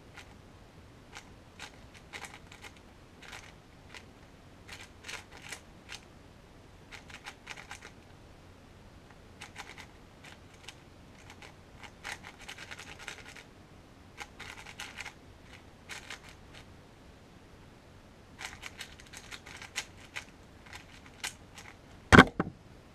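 Qiyi MS 4x4 speedcube being turned fast, its layers clicking and rattling in bursts of about a second with short pauses between. About a second before the end comes a single loud slap as a hand comes down on the speedcubing timer to stop it.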